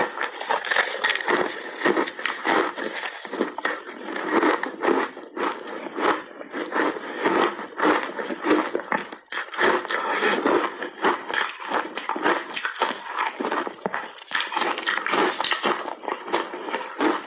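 Close-miked crunching and chewing of frozen layered ice with mixed berries: a dense, continuous run of sharp crackling crunches.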